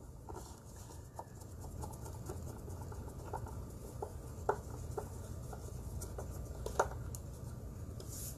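Small screwdriver driving screws into the plastic casing of an iRobot Braava jet M6 mopping robot: faint scattered clicks and scratches, with louder ticks about four and a half and seven seconds in.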